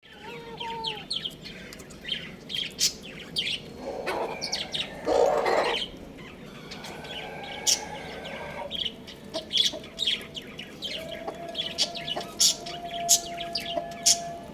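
Birds chirping over and over in short high notes, with a louder, harsher call of about two seconds starting about four seconds in.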